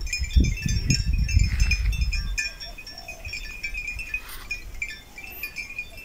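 Small bells on grazing cattle clinking lightly and irregularly, over wind rumbling on the microphone that dies down after about two seconds.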